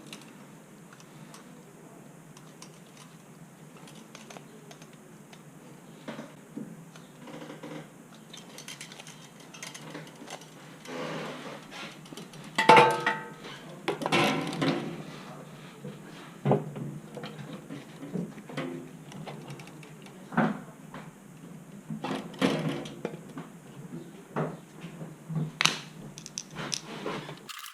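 Scattered metallic clanks, knocks and rattles of tools and parts being handled on a kitchen sink garbage disposal. The loudest is a ringing metal clank about halfway through.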